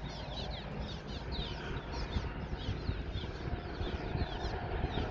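Small birds chirping repeatedly in quick, short downward notes over a steady low rumble.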